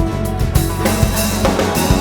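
Background music: a song with a drum kit beating steadily under sustained bass and instrument notes.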